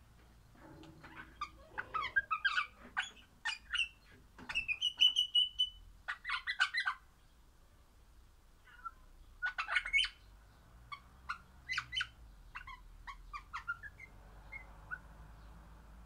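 Crimson rosella calling in two bouts of short, sharp chirps and squawks, with one held whistled note about five seconds in and a short pause between the bouts.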